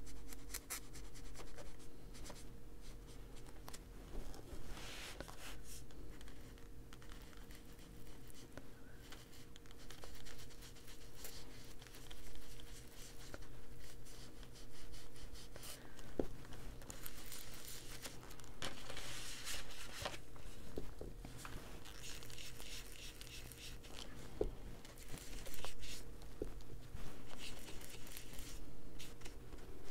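Foam detail blending tool scrubbing and dabbing Distress ink onto paper in short, irregular strokes, with a few light clicks.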